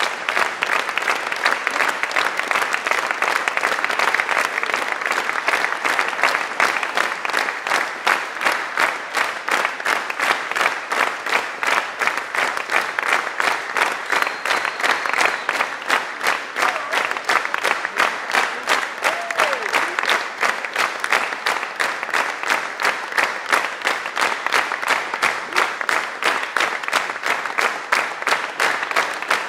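Concert audience applauding, the scattered clapping settling after several seconds into rhythmic clapping in unison, a few claps a second.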